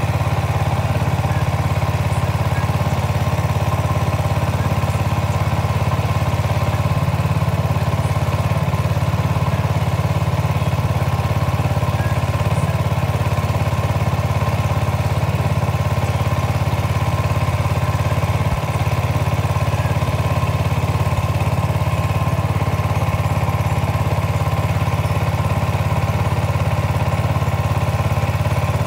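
Small boat engine running steadily at constant speed, a loud, even drone.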